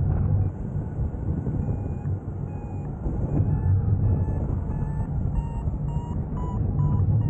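Wind rushing over the microphone in flight, with a hang glider's variometer beeping in short repeated tones, about three a second in the second half, the beeping that signals the glider is climbing.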